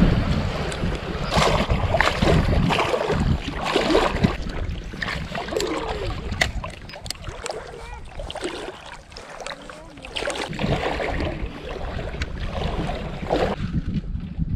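Wind buffeting the microphone over water sloshing around an angler's legs as he wades in shallow water, with scattered splashes and clicks. It eases off for a couple of seconds past the middle, then picks up again.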